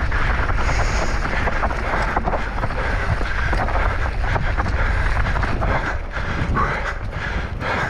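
Wind buffeting the microphone in a constant low rumble, with many short clicks and rattles from a mountain bike ridden fast over rough ground.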